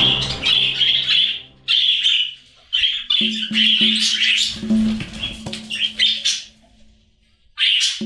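Budgerigars chattering and squawking in short bursts, over soft background music. The sound drops almost to nothing briefly about two seconds in and again for about a second near the end.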